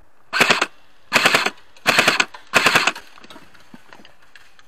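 Airsoft electric rifle (Specna Arms SA-A08 AEG) firing four short bursts of full-auto fire about a second apart, each a rapid mechanical rattle.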